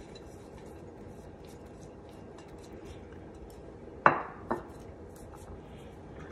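A metal serving spoon knocks twice against a large serving bowl, two sharp clinks close together a little after four seconds in, over faint steady room tone.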